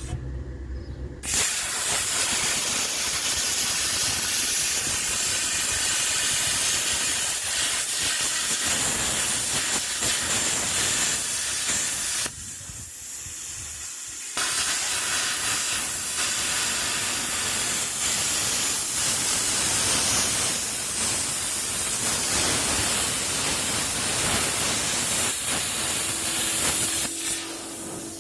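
Jasic CUT 40 air plasma cutter cutting a disc: a loud, steady hiss of the arc and compressed air. It starts about a second in, stops for about two seconds in the middle, starts again, and cuts off near the end.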